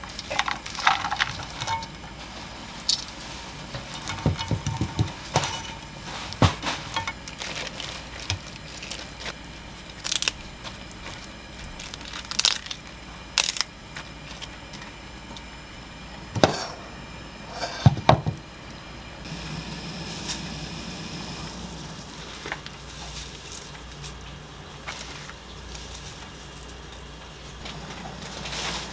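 Kitchen handling sounds: bean sprouts tipped from a stainless mesh strainer into a frying pan, and napa cabbage leaves laid over them by hand. Scattered sharp clicks and knocks of the strainer and pan come every few seconds.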